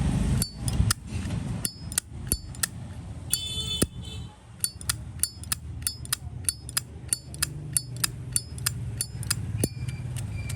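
Brass Zippo lighter lid flicked open and snapped shut again and again, a rapid series of sharp metallic clicks with a bright ring, about three a second in the later part. This is the lid-and-cam click that collectors judge a Zippo by.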